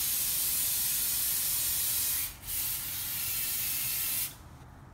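Aerosol cleaner spraying from a can in two long bursts, with a short break just after two seconds in; the spray stops a little after four seconds.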